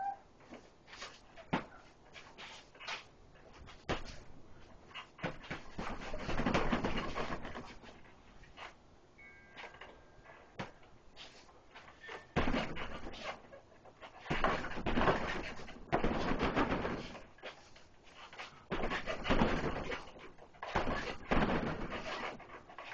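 Punches landing on a hanging heavy bag: single thuds a second or so apart, broken by several fast flurries of blows lasting a second or two.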